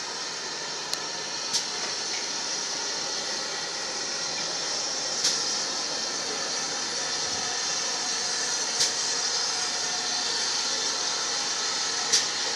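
Steady steam hiss from a GWR 57xx pannier tank locomotive, growing slowly louder as it draws its coaches slowly forward, with four sharp clicks about three and a half seconds apart.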